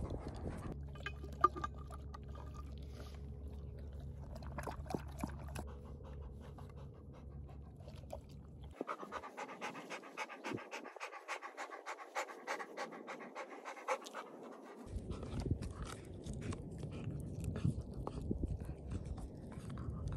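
Golden retriever panting hard, with quick, repeated breaths.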